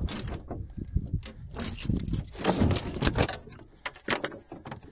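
Clattering and rattling knocks on a boat deck as fishing tackle and two freshly landed catfish on one line are handled. The clatter is dense for about three seconds, then thins to a few scattered clicks.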